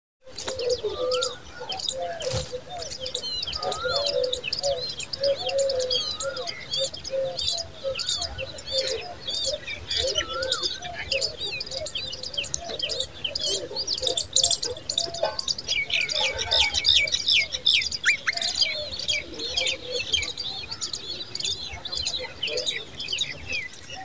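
Common babbler nestlings begging with rapid, high, overlapping chirps, over lower wavering bird calls. The chirping grows denser about two-thirds of the way through.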